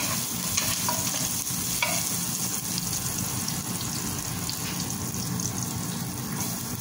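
Sliced onions sizzling in hot oil in a frying pan, with a wooden spatula stirring and scraping against the pan a few times in the first two seconds, then steady sizzling.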